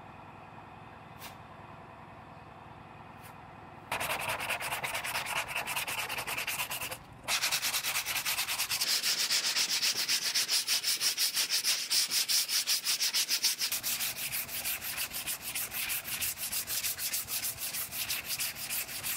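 Sandpaper hand-sanding cured body filler on a car door, with rapid back-and-forth rasping strokes starting about four seconds in and a brief pause near seven seconds. This is the filler being blocked down to shape after a quieter start.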